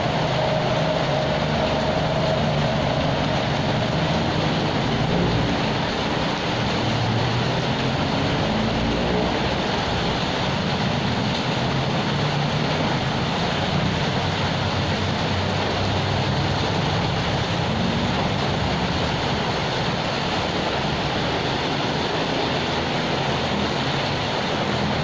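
Steady rain falling, an even hiss with no breaks, with a low wavering hum underneath.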